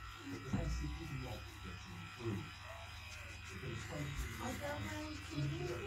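A small handheld electric facial cleansing brush buzzing steadily as it is worked over the skin.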